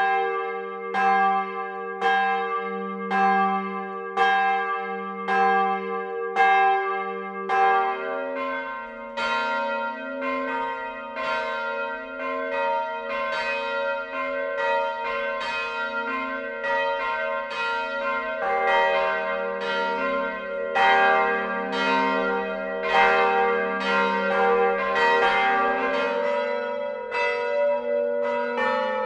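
Church bells ringing. First a single bell strikes about once a second, each stroke left to hum. About seven seconds in it gives way to a fuller peal of several bells whose strokes overlap.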